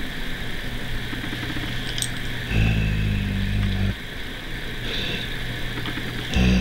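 German shepherd growling low when touched while chewing a rawhide: one steady growl of about a second and a half, starting about two and a half seconds in, and another starting just before the end. It is the sign of his upset at being handled while he eats.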